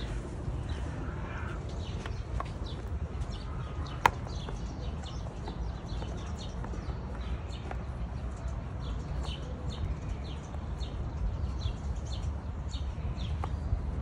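Small bird chirping over and over, short high chirps at about two or three a second, over a steady low rumble; a single sharp click about four seconds in.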